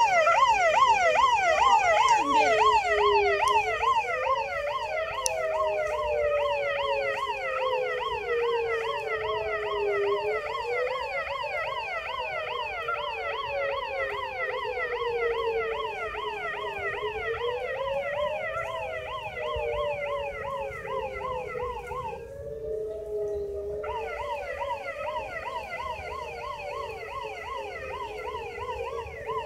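Electronic police-style siren sounding continuously: a fast yelp sweeping up and down a few times a second over a slower wail that rises and falls every five or six seconds. The yelp cuts out briefly about 22 seconds in, then resumes.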